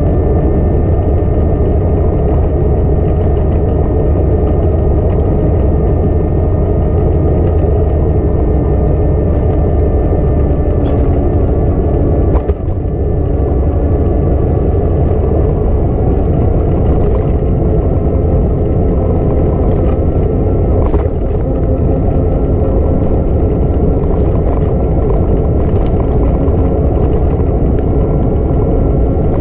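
Wind buffeting an action camera's microphone while riding, a loud steady low rumble with a faint steady whine above it and a brief knock about twelve seconds in.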